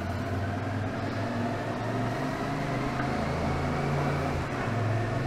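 Yamaha Tracer 7's parallel-twin engine running steadily as the motorcycle rides through a narrow rock tunnel.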